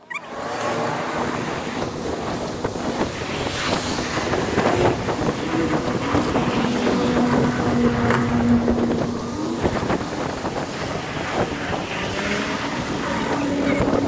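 Sped-up street noise from a moving electric scooter: wind rushing over the microphone and the traffic around it, with car engines passing and wavering in pitch. It starts abruptly.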